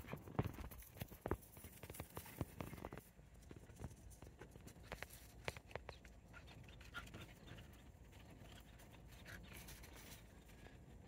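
Dogs scuffling in play: quick taps, scrapes and knocks of paws and bodies on dry ground, busiest in the first three seconds, then fainter and sparser.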